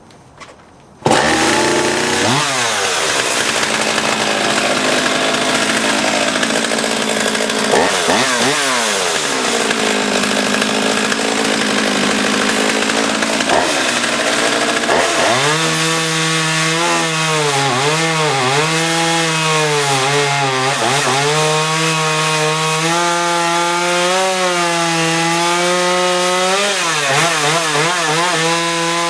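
Jonsered 535 Classic two-stroke chainsaw cutting seasoned hardwood. It comes in loud about a second in and runs at high revs, its engine note sagging and picking up again over and over as the chain loads up in the wood.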